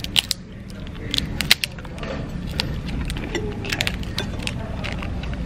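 Crab legs being cracked and picked apart by hand: irregular sharp snaps and clicks of shell, with two louder cracks in the first second and a half, over a steady low background hum.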